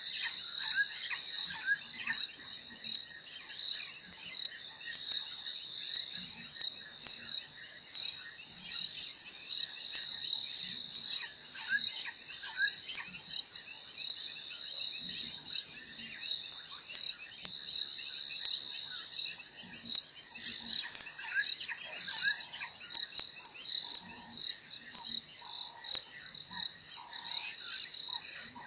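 Night insect chorus: a loud, high, cricket-like trill that pulses in a steady rhythm, a little under two pulses a second, with fainter scattered chirps beneath.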